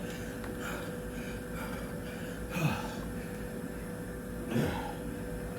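A man breathing hard as he recovers from a set of burpees. There are two short groaning exhales that slide down in pitch, about two and a half and four and a half seconds in. A steady hum runs underneath.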